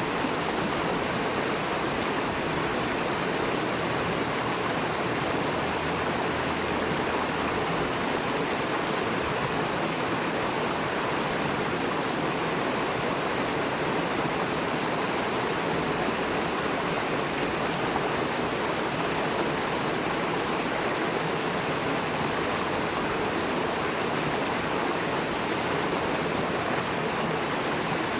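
River water rushing fast over and between rocks, a steady full rushing sound that does not change.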